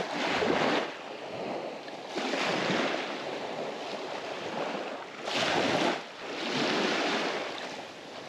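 Small bay waves washing in and out on a sandy shoreline at the angler's feet, swelling and easing about four times.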